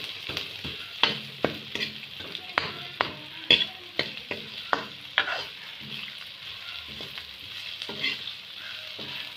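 Sliced onions, cumin and bay leaves sizzling in hot mustard oil in a kadhai, frying for a tadka. A steady hiss runs throughout, broken by irregular scrapes and clacks of a metal ladle against the pan as they are stirred, thickest in the first half.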